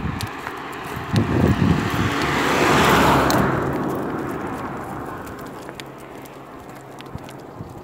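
A car driving past on the road: tyre and engine noise that swells to its loudest about three seconds in, then fades away slowly.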